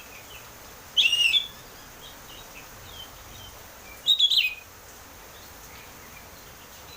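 Oriental magpie-robin singing loud, clear phrases: two short bursts about three seconds apart, with faint softer chirps between them.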